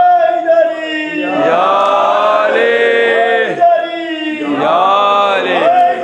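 A man's voice chanting a devotional salawat in long, held melodic phrases.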